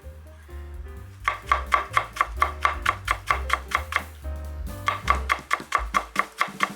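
Kitchen knife chopping okra rapidly on a cutting board, about five strokes a second, in two runs with a short pause midway, over background music.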